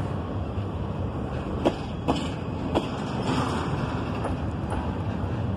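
Double-stack intermodal well cars of a freight train rolling past at close range: a steady rumble and rush of steel wheels on rail, with a few sharp clacks between about a second and a half and three seconds in.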